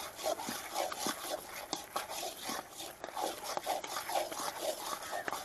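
A long-handled ladle stirring a thick, nearly finished halwa in a heavy iron kadai: a rhythmic wet churning a few strokes a second, with sharp clicks as the ladle knocks the pan.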